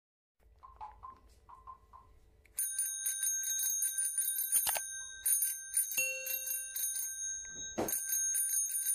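Intro sound effect of a bicycle bell ringing rapidly and repeatedly, starting suddenly about two and a half seconds in after a few faint notes. Two short sweeping sounds cut across the ringing.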